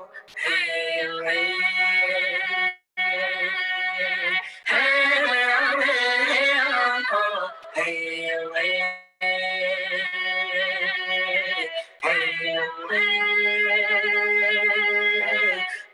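Singing of wordless vocables: a voice holding long, wavering notes in phrases of one to three seconds, separated by short breaks.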